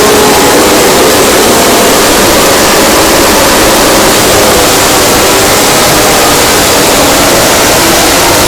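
MotoGP racing motorcycle engines at very high volume, overloading the recording into a constant distorted noise, with faint gliding engine pitches in the first few seconds.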